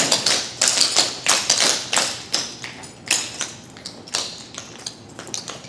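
Clogging taps on the dancers' shoes striking a hard floor in quick runs of clicks as the dancers step through a routine. The taps come thick for about the first three seconds, then thin out to scattered clicks.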